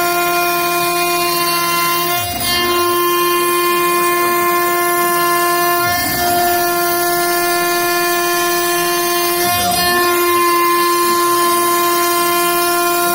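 CNC router spindle running at 20,000 rpm with a 12 mm four-flute end mill taking a 5 mm-deep, full-width cut through MDF, a loud steady high whine. About every three and a half seconds the sound is broken by a short low sweep.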